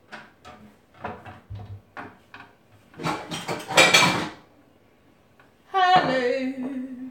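Light knocks and clinks, then a louder clatter of dishes about three seconds in as a white bowl is taken from the sink. A woman starts speaking near the end.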